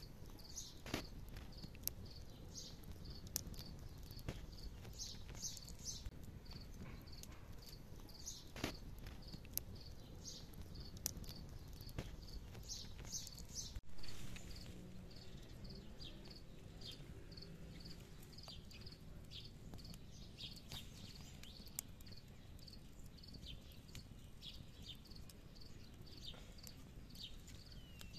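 Insects chirping in a steady, even rhythm of about three short high chirps a second, over the low rush of an open campfire. Scattered sharp cracks come from the burning wood, with a louder knock near the middle.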